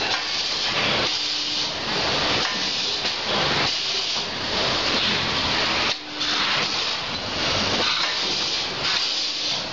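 Vertical form-fill-seal packaging machine running, a steady hiss with a repeating beat about once a second as it forms and seals film sachets.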